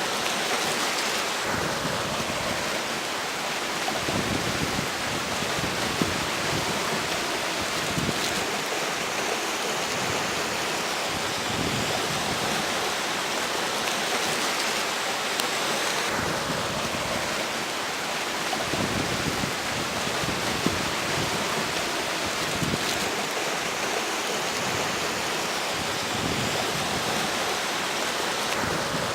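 River water rushing steadily, with strong wind gusting over it; the wind comes and goes as uneven low rumbles on the microphone.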